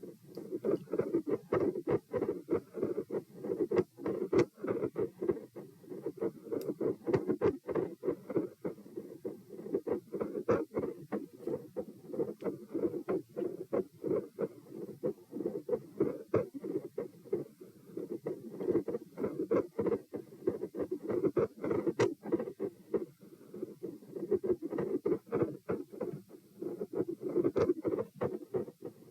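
Heart sounds heard through a stethoscope at the pulmonic (P) listening point: a steady run of lub-dub beats, dull low thumps repeating several times a second, with scratchy contact clicks from the chest piece.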